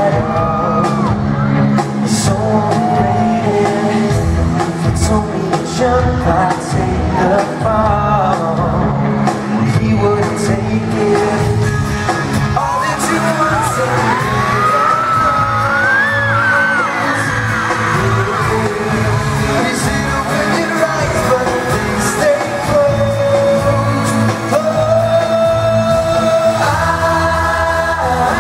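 Live pop song played by a band with male lead vocals, several singers with microphones over keyboard and band accompaniment, heard from the audience in a large, echoing arena.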